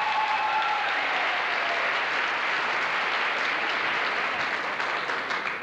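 Audience applause in an auditorium, dying down near the end.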